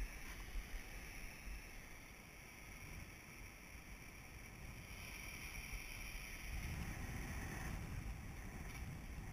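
Wind on the microphone over the steady wash of sea swell against a rocky cliff base. A low rumble grows stronger about two-thirds of the way through.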